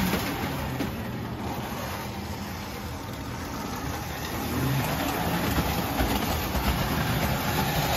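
Tinplate electric model trains running on three-rail track: a Lionel Standard Gauge 400E steam locomotive and a Lionel postwar O gauge 2245 Texas Special diesel set, a steady rumble of motors and wheels on the rails. It grows louder about halfway through.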